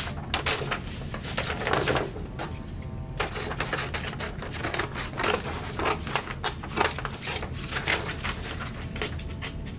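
Rapid, irregular clicking and tapping from paper and wooden popsicle sticks being handled and pressed together on a tabletop, with a short lull about two and a half seconds in, over a steady low room hum.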